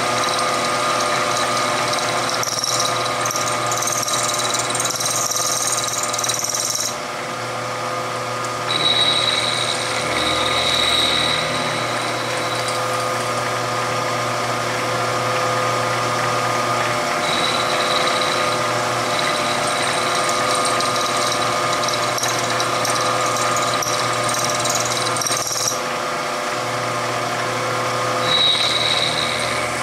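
Milling machine running, its end mill cutting the moon-clip seat into the chamber mouths of a stainless Smith & Wesson Model 686 revolver cylinder. It makes a steady hum with a high whine that comes and goes as the cutter works.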